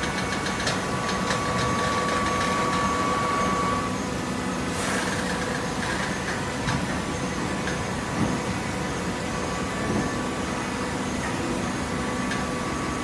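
Horizontal hydraulic carton baler running: the steady hum and whine of its hydraulic pump and motor. The whine drops away about four seconds in, and a brief hiss comes about a second later, with a few light knocks after that.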